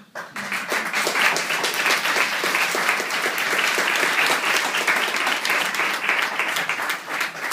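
Audience applauding, many hands clapping, starting suddenly and going on steadily, easing a little near the end.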